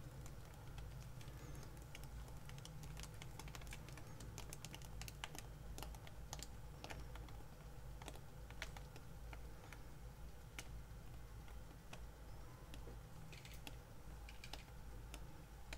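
Faint, irregular light clicks and taps from handling the paint-covered canvas as it is tilted, over a low steady hum.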